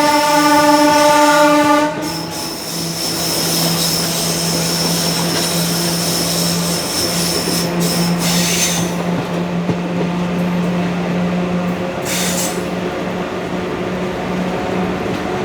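WAG5 electric locomotive's horn sounding one steady note that cuts off about two seconds in, followed by the steady running noise of ICF passenger coaches on the track, with a thin high wheel squeal that fades out around the middle.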